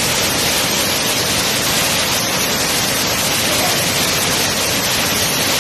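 Waterfall pouring over rock into a plunge pool: a steady, even rush of falling water.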